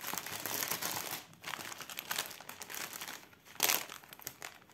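Small clear plastic zip bags of diamond-painting drills crinkling as they are handled and sorted. There is a dense run of rustling in the first second or so, scattered crinkles after that, and one louder crinkle a little past three and a half seconds.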